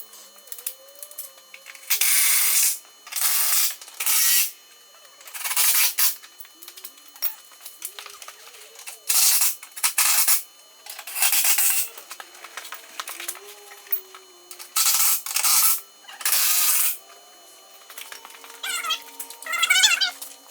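Power tool, likely an impact wrench, run in about ten short bursts of half a second to a second each, driving in the bumper bolts.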